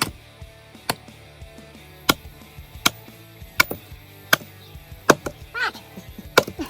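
Sharp knocks repeated about once every three-quarters of a second, with a brief squealing glide about five and a half seconds in; music plays underneath.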